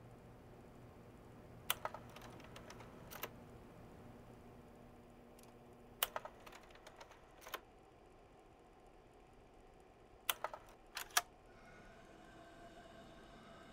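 Slide projector changing slides: three bursts of sharp mechanical clicks about four seconds apart, over a low steady hum.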